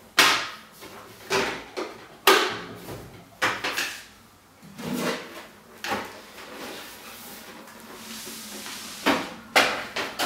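Hard plastic knocks and clunks as a sewing machine's hinged top lid is shut and its hard plastic cover is lowered and fitted over the machine. There are a dozen or so separate knocks, bunched in the first four seconds and again near the end, with a quieter stretch in between.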